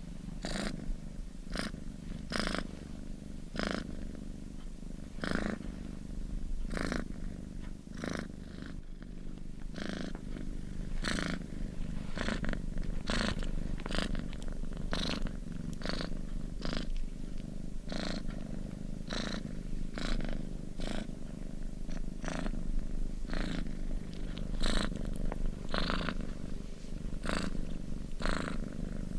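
Hairbrush strokes, a short swishing stroke about once a second in an even rhythm, over a steady low rumble.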